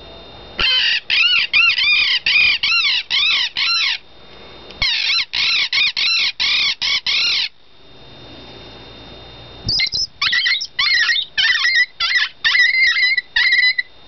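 Open-reed predator distress call blown to imitate a bird in distress: three runs of rapid, high-pitched notes, each note rising and falling, with short breaks between the runs.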